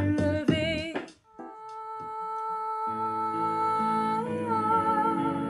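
A woman singing a French pop line with vibrato, breaking off about a second in. Then backing music comes in with a long held note, and low sustained chords join about three seconds in.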